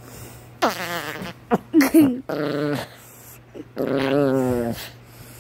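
Small dog grumbling: several drawn-out, wavering growl-whines, the first falling in pitch and the longest starting nearly four seconds in.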